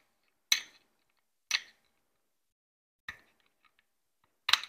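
Sharp clicks and snaps of a small tool prying bits of support material out of a 3D-printed plastic pistol frame: four separate clicks about a second apart, with quiet between.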